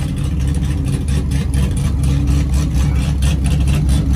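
Drag-race pickup truck's engine idling loudly with a choppy, uneven beat as the truck rolls slowly forward after its burnout.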